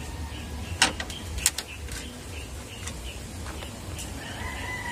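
Screwdriver working out the screws of a Honda CR-V's plastic front grille: a few sharp clicks about a second in and again around a second and a half. Faint bird and insect calls and a low rumble run underneath.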